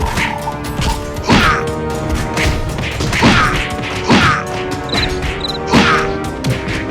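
Four sharp, whooshing impact sound effects, about one to two seconds apart, over steady background music.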